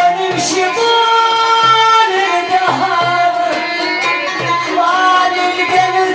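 Iraqi folk song performed by a traditional Middle Eastern ensemble, with a woman singing. Held melodic lines run over low notes that recur about once a second.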